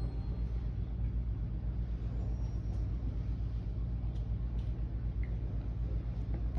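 Low, steady engine-like rumble with a fast, even pulse, like a vehicle engine idling. A few faint light clicks sound over it.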